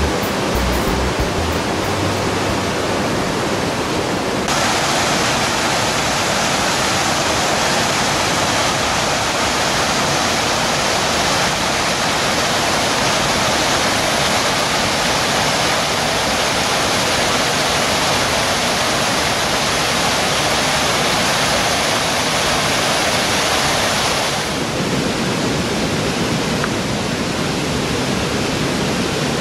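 Brook water cascading down a rocky gorge as a waterfall: a loud, even rush of white water. It turns brighter and hissier about four seconds in and duller again about five seconds before the end.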